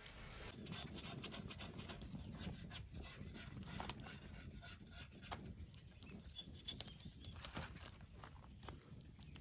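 Faint rustling and scattered light clicks from a carcass being handled and shifted on woven plastic sacking, over a low outdoor rumble.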